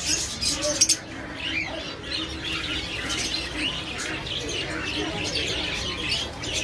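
Many birds chirping and tweeting at once in a dense chorus of short, overlapping calls, with two sharp clicks just under a second in.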